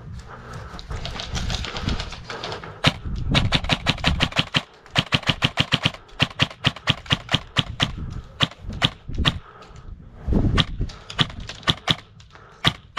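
Airsoft guns firing rapid strings of sharp shots, several a second. The shots start about three seconds in, stop briefly about two-thirds of the way through, and then start again.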